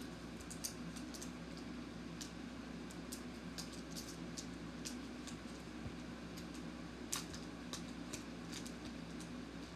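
Irregular light clicks and rustles of small plastic parts and packaging being handled and packed into a box, with one sharper click about seven seconds in, over a steady low hum.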